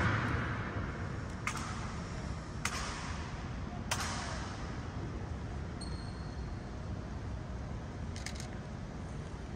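Honor guard's ceremonial rifle drill ringing in a large marble hall: the echo of a loud strike dies away, then three sharp clacks come about a second apart, with a fainter one near the end.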